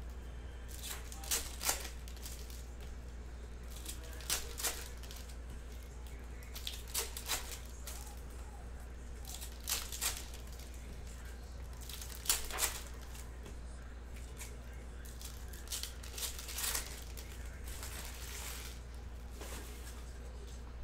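Foil trading-card packs being torn open and crinkled by hand: short, sharp crackling rips, often in pairs, every two to three seconds.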